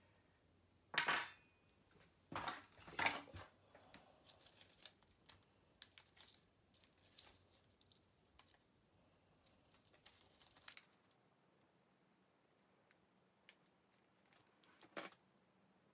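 Small handling sounds of paper crafting: a ribbon bow worked off a metal fork and a glue-dot roll handled, heard as scattered clicks and rustles. The sharpest come about a second in and around three seconds, with another near the end.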